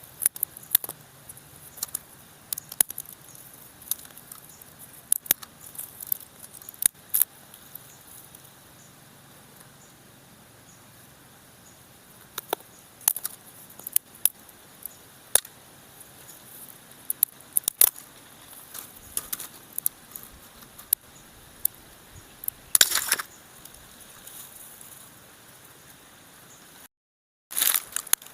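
Small dry tree twigs cracking and snapping in scattered, irregular sharp clicks, with a louder cluster of snaps a little past two-thirds in. Near the end the sound cuts out briefly, then a denser crackling starts.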